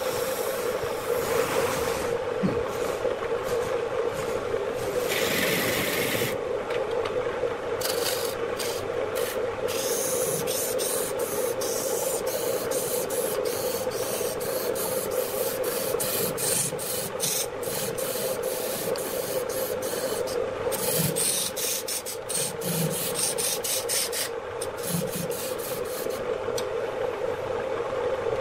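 A large wooden blank spinning on a wood lathe while it is sanded by hand: a steady sanding noise over a steady hum from the lathe, with fast scratchy flickers through the middle.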